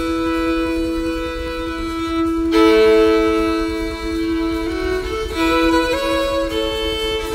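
Background music: a fiddle playing a slow melody of long held notes.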